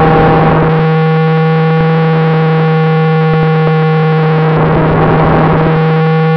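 Steady electric buzz on the FPV plane's onboard audio, holding one pitch with a string of overtones. A rush of wind-like noise swells at the start and again about five seconds in.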